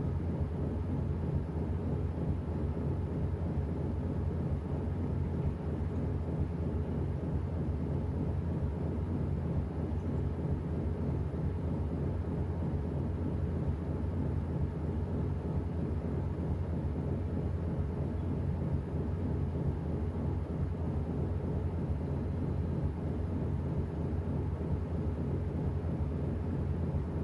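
Washing machine running steadily: a constant low rumble with no breaks.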